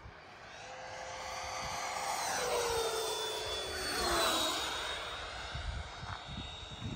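Whine of Freewing electric ducted-fan RC jets on a fast pass. It swells and slides down in pitch as they go by, loudest about four seconds in.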